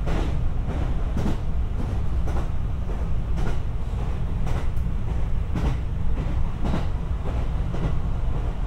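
Inside a JR West 227 series 500 'Urara' electric multiple unit running along the line: a steady low rumble with wheels clicking over rail joints, often in quick pairs. The traction motors are barely audible, a notably quiet-running motor car.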